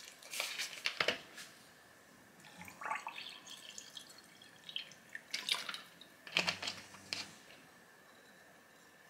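Plastic water bottle handled, with clicks and crinkles, then water poured from it into a glass tumbler, followed by a few knocks and clicks as the bottle and glass are handled again.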